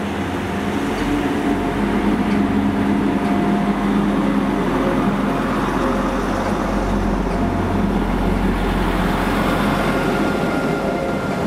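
Class 175 diesel multiple unit running slowly along the platform close by, its underfloor diesel engines and transmission giving a loud, steady hum with a thin whine above it.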